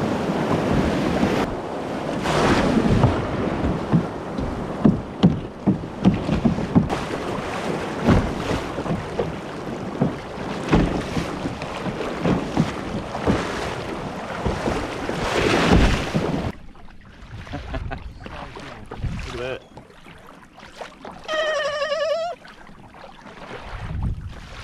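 Ocean surf breaking and washing around a fishing kayak as it is pushed out through the waves, with splashes and wind buffeting the microphone. About two-thirds through, the surf noise cuts off and gives way to quieter, calm water.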